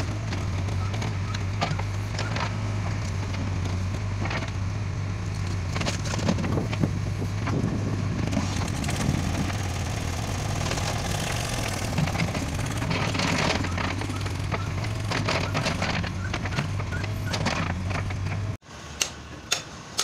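JCB backhoe loader's diesel engine running steadily while its bucket digs and dumps red soil and stones, with scraping and clattering of earth and rocks throughout. Near the end the engine sound cuts off suddenly, leaving a few sharp clicks.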